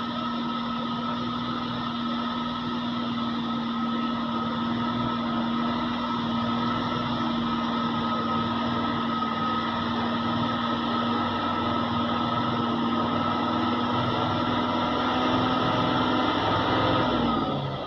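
Loaded logging truck's engine and drivetrain running with a steady whine, growing a little louder as it approaches; near the end the whine drops in pitch and the sound falls away.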